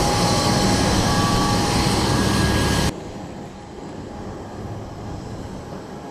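Steady whine and rumble of a jet aircraft on the apron, several steady tones over a dense noise. It cuts off suddenly about three seconds in, leaving a much quieter steady outdoor background.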